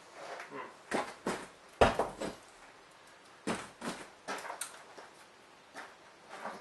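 Scattered knocks and scrapes of boards and demolition debris being handled, about eight short sharp sounds at irregular intervals with quiet gaps between them.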